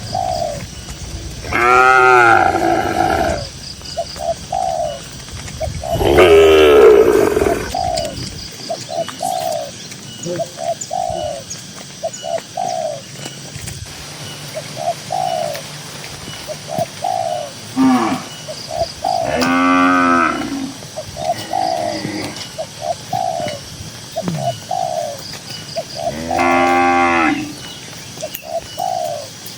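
Cows mooing: four long, drawn-out moos, the first two loudest. A bird coos repeatedly underneath.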